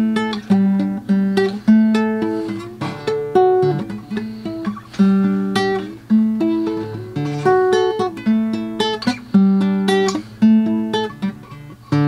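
Guitar played slowly, chords sounded one after another, each ringing out and fading before the next one.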